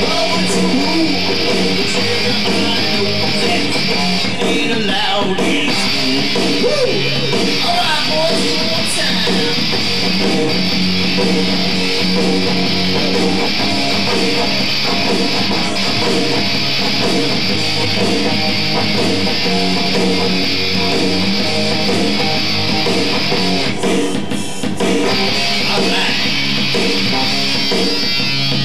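Two electric guitars played loud through amplifiers in a rock band rehearsal, with a short break in the playing near the end.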